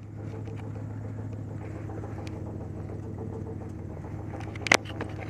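Truck engine running steadily with a low hum, with small rattles and one sharp knock near the end.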